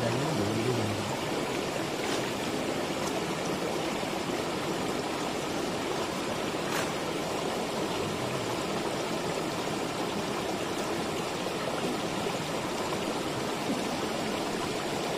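Shallow rocky river rushing steadily over stones and a small cascade, with a few faint clicks here and there.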